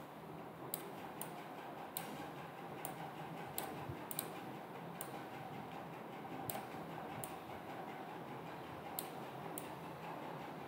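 Faint computer mouse clicks, about a dozen at irregular intervals, over a steady low background hiss.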